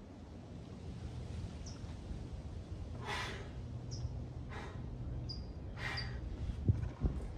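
A man breathing hard through resistance-band overhead presses, a forceful exhale about every second and a half, with short high squeaks between the breaths and two low thumps near the end.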